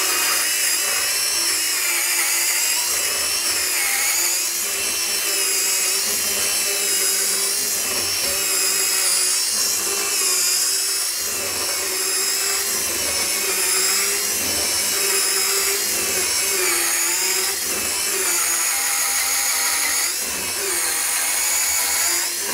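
Bosch EasyCut 12 cordless NanoBlade mini chainsaw cutting through a thick block of hardwood, which the user takes for oak. The motor and chain give a steady whine with a slightly wavering pitch, working hard under the load.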